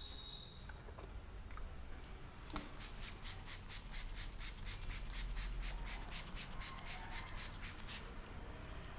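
Hands rubbing briskly over hair and scalp in an Indian head massage, a few faint clicks at first, then a steady run of rapid scratchy strokes at about four a second for some five seconds before stopping.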